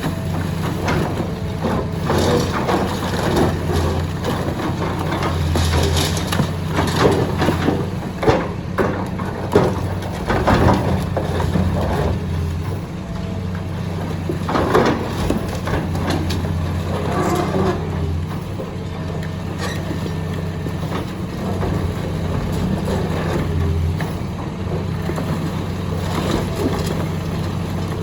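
Excavator's diesel engine running steadily under irregular cracking and crunching of concrete being crushed, the crunching heaviest from about six to eleven seconds in.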